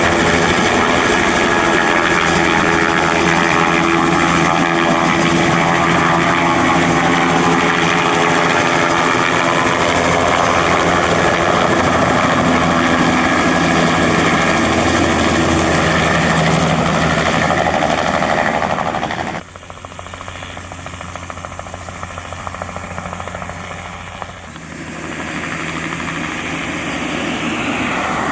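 Bell 206B-3 JetRanger III helicopter, its Allison 250 turboshaft and rotor running loud and steady at close range. About two-thirds of the way through the sound drops abruptly to a quieter level, then builds again near the end.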